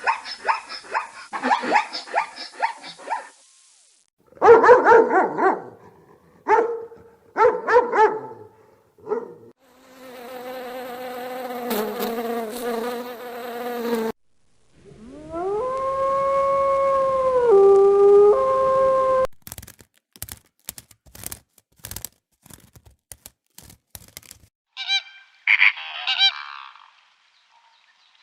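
Calls of several different animals one after another, each clip cut off abruptly: rapid repeated calls at the start, a long held pitched call in the middle, scattered clicks, and a short high call near the end.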